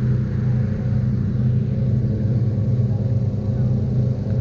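An engine running at a constant speed, giving a steady hum that neither rises nor falls.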